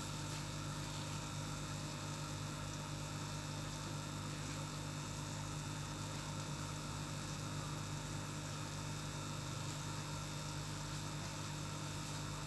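Aquarium air pump humming steadily, with a constant hiss.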